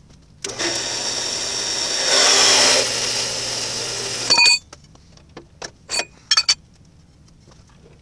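Metal-cutting band saw running and cutting through 1-inch steel tubing. The motor hum and cutting noise start about half a second in, get louder in the middle, and stop suddenly about four seconds in with a short metallic ring. A few light metal knocks follow.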